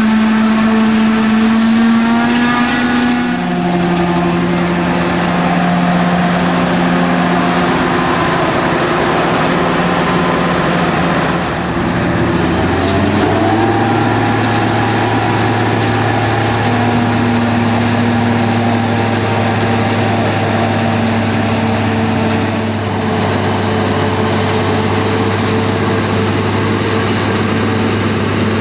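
Deutz-Fahr Gigant 400 forage harvester chopping maize, its engine and chopper drum running under load as a loud, steady drone, mixed with the engine of the tractor pulling the trailer alongside. The pitch shifts a few seconds in and again a little before halfway, with a short rise.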